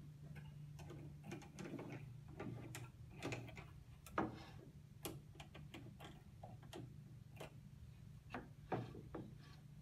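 Scattered light clicks and knocks of a wooden board being handled on a band saw table and of the saw's blade guard being adjusted, the loudest a sharp click about four seconds in, over a steady low hum.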